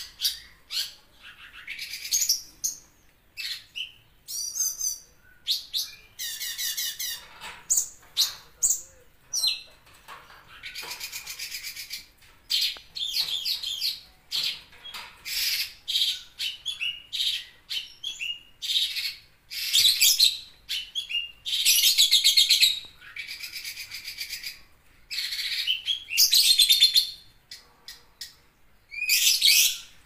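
Caged cucak cungkok singing loudly in high, sharp bursts, its typical 'tembakan' shots. Short calls alternate with longer, rapid rattling trills and come in quick succession with brief gaps.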